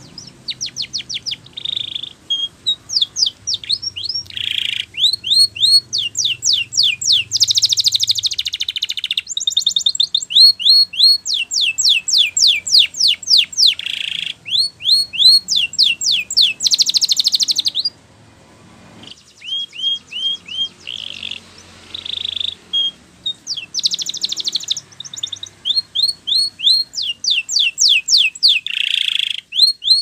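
Canary singing a long song of rapid repeated phrases, each a fast run of high falling notes, with brief gaps between phrases and one short pause a little past halfway.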